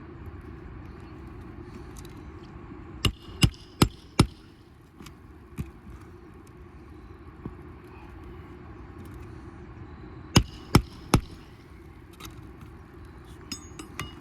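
Hammer driving roofing nails into asphalt shingles: four quick strikes about three seconds in, then three more about ten seconds in, over a steady low background rumble.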